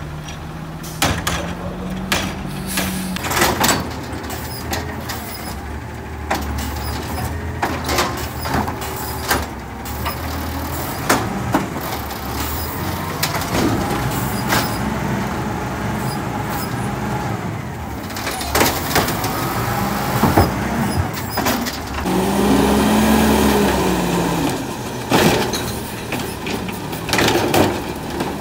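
Automated side-loader garbage trucks at work: the engine and arm hydraulics rise and fall in pitch as the arm lifts and tips wheelie bins into the hopper. Repeated sharp bangs come from the bins knocking against the truck and trash dropping in.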